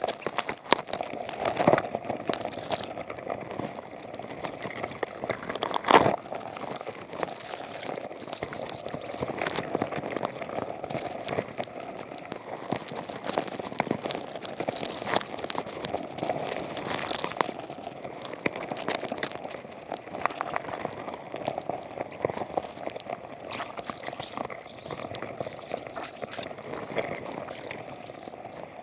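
Underwater crackling and clicking heard through a camera's waterproof housing on the floor of a crab trap, with scattered sharp knocks, the loudest about six seconds in.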